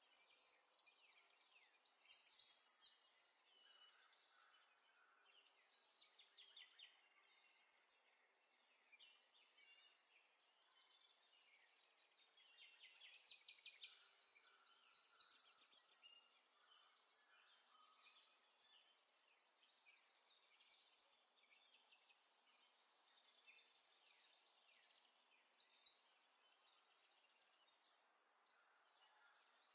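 Faint birds chirping, with quick high trills coming in bursts every few seconds.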